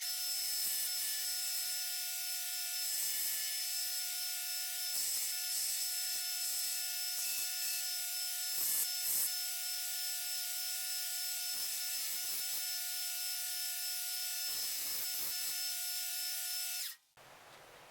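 Belt grinder with a 60-grit belt running and sanding the edges of a Kydex sheath to profile: a steady motor whine with a high abrasive hiss and repeated scraping passes. It stops abruptly near the end.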